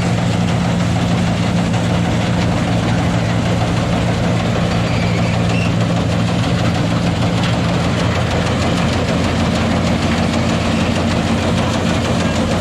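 Engine of a small plot combine harvester running steadily at a constant speed, with a deep, even hum.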